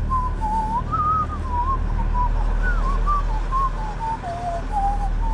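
A person whistling a meandering tune in short phrases, with a low steady hum underneath.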